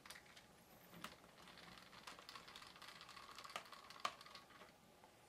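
Faint light clicks and a soft scratching from small screws and a screwdriver being handled on a laptop's plastic base.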